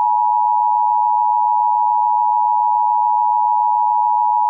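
Emergency Alert System attention signal: a loud, unbroken, steady electronic two-tone just under 1 kHz. It announces that an emergency alert is about to be read.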